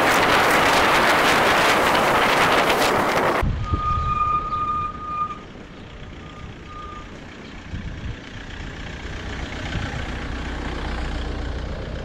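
Loud wind rushing over the microphone while riding. About three and a half seconds in it cuts off suddenly to a quieter low rumble with a high steady beep held for over a second, then two short beeps.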